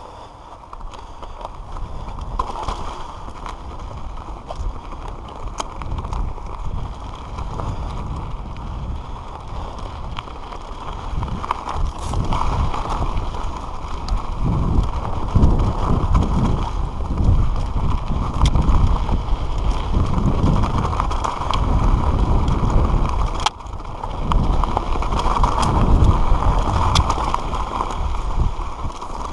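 Giant Reign mountain bike riding fast down a dirt and loose-stone trail: tyres crunching and rumbling over the ground, with scattered knocks and rattles from the bike over bumps, and wind buffeting the helmet-mounted microphone. It grows louder and rougher from about halfway through as the speed rises.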